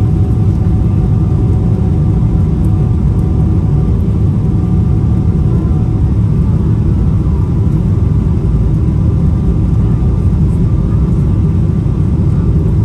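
Steady low rumble of a Boeing 777-300ER's engines and airflow heard inside the cabin, with a faint steady whine above it.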